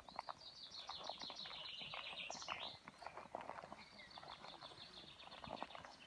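A songbird singing two long, rapid trills, the first ending in a quick higher flourish, over footsteps on an asphalt road.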